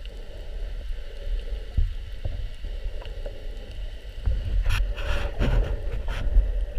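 Muffled underwater sound heard through an action camera's waterproof housing: a low rumble of moving water with scattered sharp clicks, and a few louder noisy rushes between about four and six seconds in.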